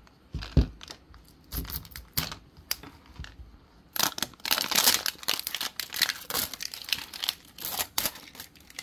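Plastic shrink-wrap being peeled and torn off a toy capsule ball, crinkling and tearing. A few scattered clicks come first, then a long stretch of crinkling from about four seconds in.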